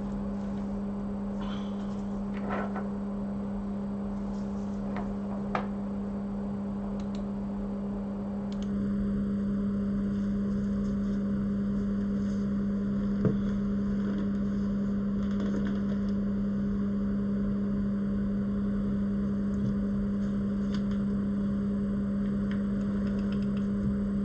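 Steady electrical hum with a strong low tone from a UV curing lamp switched on to harden solder mask on a phone logic board. It steps up slightly in level about nine seconds in. A few faint ticks sound over it.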